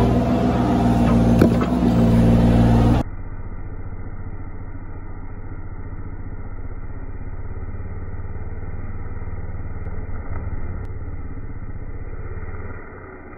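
A Bobcat mini excavator's engine runs loudly for about three seconds. After a cut, a chainsaw runs steadily through the back cut of a notched poplar trunk, sounding dull and muffled with no highs, and it eases off near the end.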